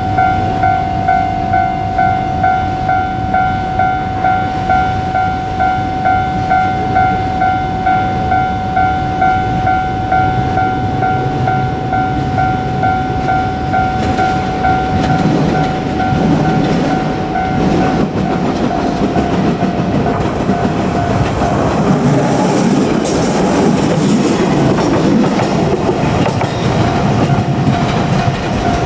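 Japanese level-crossing warning bell ringing in a steady repeating ding, about one and a half to two strokes a second. About halfway through a JR Kyushu 817 series electric train comes up and passes, its wheels rumbling and clattering over the rail joints, loudest near the end, with the crossing bell still ringing under it.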